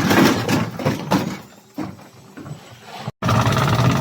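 Hotpoint FMG723 washing machine running hard, with loud rattling and knocking over a motor hum. The sound cuts out abruptly about three seconds in, then comes back loud and steady.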